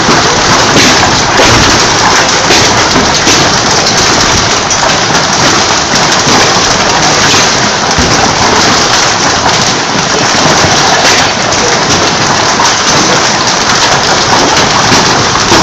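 Heavy rain and hail of a hailstorm pelting down, a loud, steady, dense patter of countless impacts.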